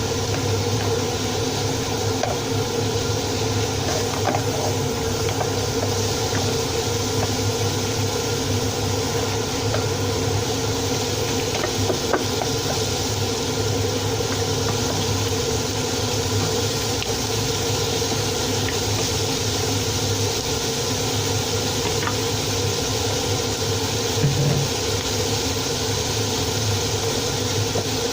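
Steady hum and hiss of a running fan or motor, with a few faint clicks.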